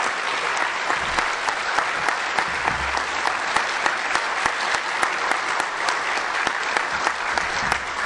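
Audience applauding: many people clapping at once, a steady dense patter that holds at an even level throughout.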